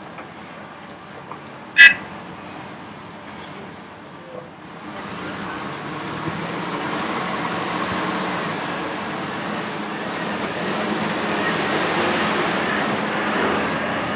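A sharp metallic bang about two seconds in, loud and ringing, as dumped spoil strikes the steel body of a Cat 740B articulated dump truck. From about five seconds in, the loaded truck's diesel engine builds up as it pulls away, with a high whine rising in pitch, then eases off near the end.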